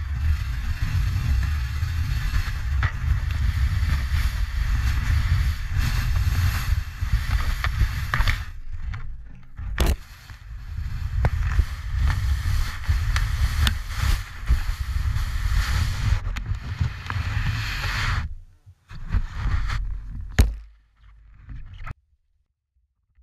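A 140 cm Barracuda 3D powsurf board, a snowboard ridden without bindings, running through powder, heard from the board's nose: a steady rushing hiss of snow over a heavy low rumble. It eases off about eight seconds in, with a sharp knock near ten seconds, runs on, then stops about eighteen seconds in; a few short scuffs and a knock follow before it goes silent near the end.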